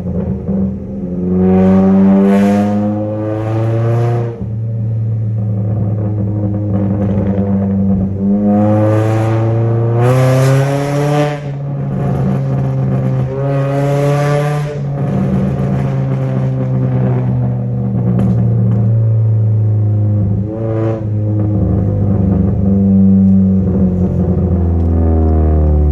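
Ford Focus four-cylinder engine on FSWERKS headers and a straight-piped exhaust, revved up and let fall several times over a steady loud drone, with a short blip near the end. Sharp exhaust pops and crackles come as the revs drop, from a tune set up for them.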